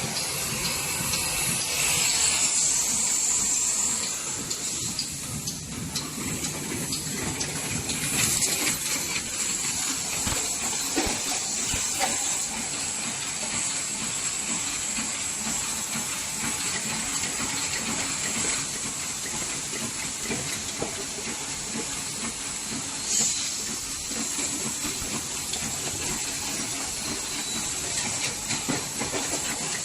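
SM-100 double-wall paper cup sleeve machine running at production speed: a steady, dense mechanical clatter under a continuous high hiss, with a few brief louder swells.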